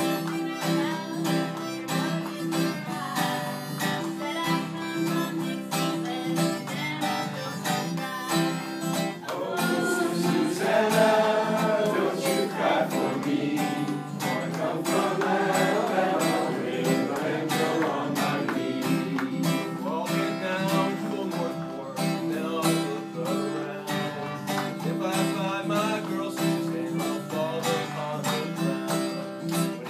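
Acoustic guitar music with a steady strummed accompaniment in a country style, and a wavering melody line that comes in strongly about nine seconds in and fades back about halfway through.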